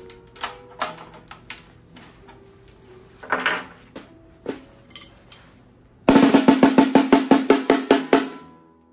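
3D-printed snare drum tuned to very high tension. First come light taps and crackling pops from the stretched head as it is pressed: the head's glue popping. About six seconds in there is a fast run of stick strokes with a high, tight ring and snare-wire rattle, fading out near the end.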